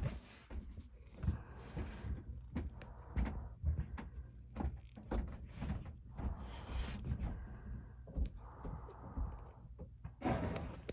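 Handling noise: irregular knocks, taps and scraping as the inspection camera is worked among wooden joists and cables, with a louder scrape near the end.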